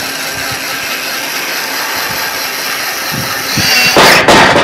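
Mighty Mule gate opener arm's motor and gearbox running steadily as it drives the gate closed. About four seconds in comes a loud clatter as the gate's bar pushes in the limit switch lever and the gate stops.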